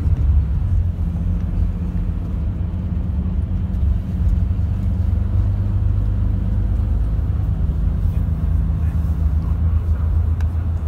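Coach's diesel engine and road noise heard inside the passenger cabin: a steady low drone as the coach cruises along the road.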